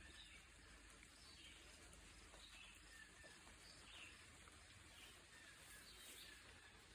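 Near silence outdoors with faint, scattered bird chirps every second or so.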